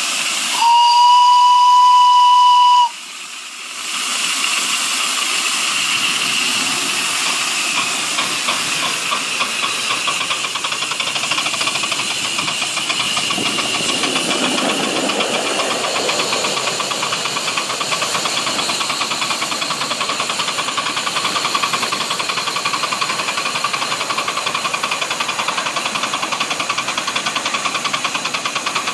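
Miniature live-steam GWR 14xx tank locomotive: one steady whistle blast of about two seconds just after the start. Then a continuous hiss of escaping steam as it sets off, with a fast, even beat of exhaust chuffs that grows clearer in the second half.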